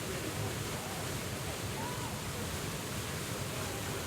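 Waterfall in spate after heavy rain: a steady, even rush of falling water.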